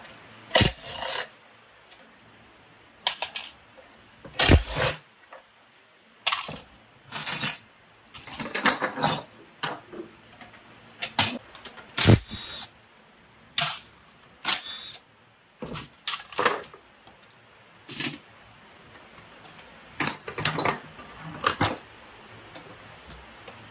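Metal tools and small-engine parts clinking and clanking as they are handled and set down: irregular sharp metallic knocks, one every second or so, a few heavier with a dull low thud.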